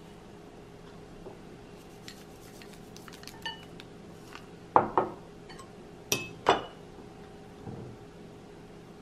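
Glass and ceramic tableware clinking as condiments are spooned from small glass bowls into a ceramic serving bowl. A few light clicks come first, then four sharp, ringing clinks in two quick pairs around the middle, then a soft knock.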